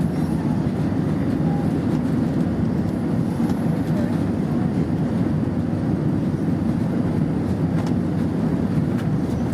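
Airbus A320 cabin noise: a steady low rumble of the engines and rushing air, heard from inside the passenger cabin.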